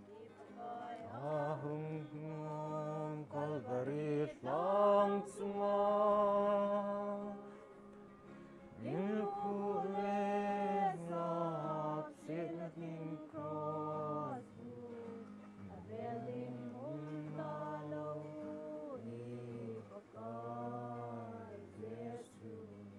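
Congregation singing a slow hymn together in long held notes, the phrases broken by short pauses about eight and fifteen seconds in.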